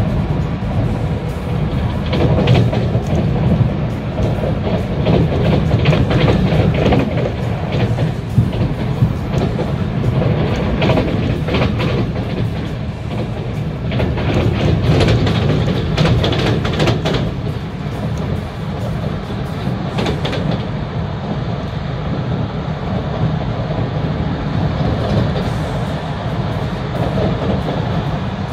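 Train running, heard from inside the carriage: a steady low rumble of wheels on track, with bouts of clicking and clatter over rail joints in the first two-thirds.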